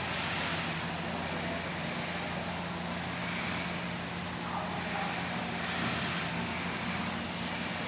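Dual-head laser cutting machine running: a steady hum and hiss from its fans and air assist, with a few faint short whines as the gantry heads move.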